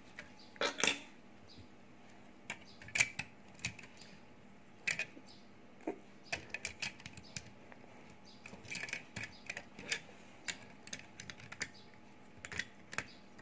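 Scattered light clicks and taps of plastic LEGO parts as hands handle and adjust a toy truck's cab, coming at irregular intervals.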